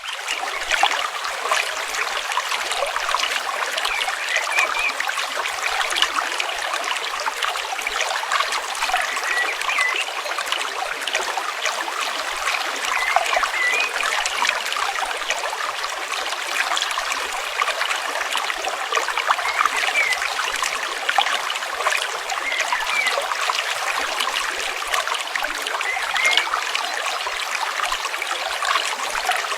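A stream flowing steadily, with short bubbling notes here and there over the rush of water.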